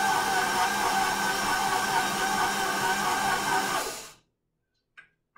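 Electric stand mixer running steadily, its motor whining as the beater turns through bread dough in a steel bowl; it stops about four seconds in.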